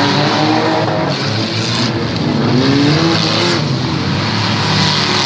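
Demolition derby cars' engines revving hard, one rising in pitch about two and a half seconds in, over a steady noisy haze.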